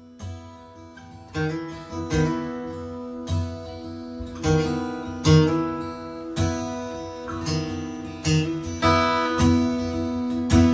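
Acoustic guitar playing an instrumental intro, strummed chords on a steady rhythm that comes in fuller about a second in.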